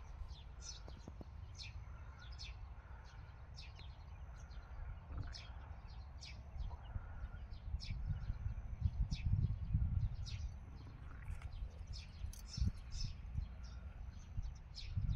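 Small birds chirping in short, scattered calls, over a low rumble of wind on the microphone that swells about eight to ten seconds in.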